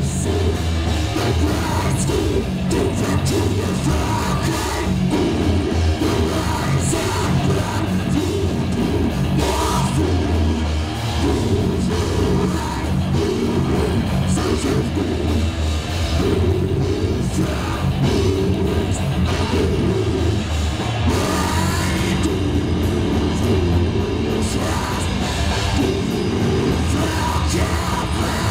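Live heavy metal band playing loudly: distorted electric guitars over a drum kit with frequent cymbal hits, with singing and yelled vocals.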